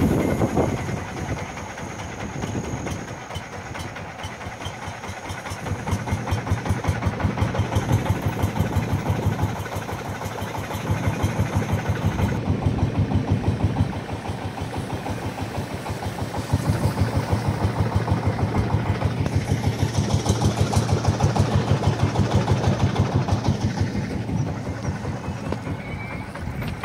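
Long-tail boat engine running with a rapid, even pulsing. Its level swells and dips by turns and eases off over the last few seconds.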